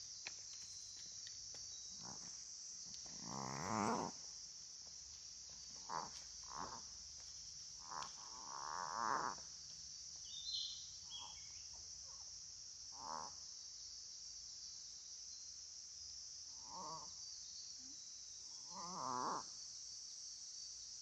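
A small dog reverse sneezing: short bouts of rapid, pulsing, gasping inhalations, repeated every few seconds. A steady high insect drone runs behind it, with a few faint bird chirps.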